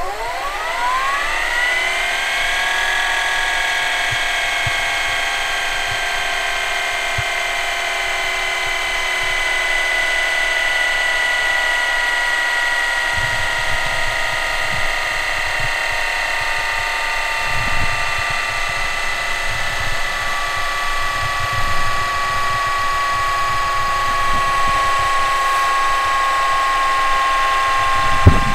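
Panasonic NV-HD635 VCR's tape transport running: a whine rises in pitch over the first couple of seconds as it comes up to speed, then holds steady while sinking slowly. A sharp click comes near the end.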